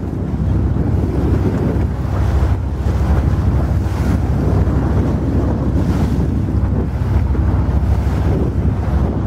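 Wind buffeting the microphone over the steady rush and splash of the bow wave along a small boat's hull as it moves through choppy water.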